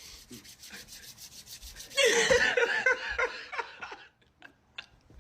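A rapid, evenly repeated rasping sound for about two seconds, then a burst of laughter that trails off into a few faint clicks.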